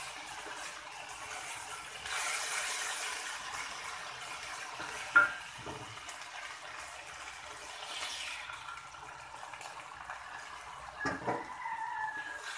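Midin fern shoots stir-frying in a wok with belacan, sizzling with a steady hiss that grows louder about two seconds in. A wooden spatula scrapes and knocks against the wok, with a sharp knock about five seconds in and a few more near the end.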